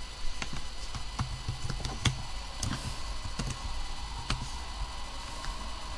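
Typing on a computer keyboard: irregular key clicks, a dozen or so, over a low steady hum.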